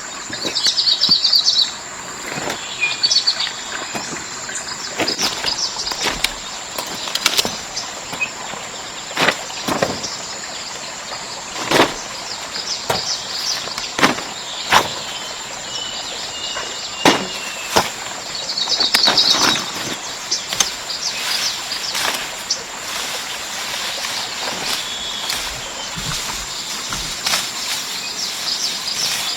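Birds chirping over a steady high-pitched whine, with scattered sharp knocks and clicks every second or two.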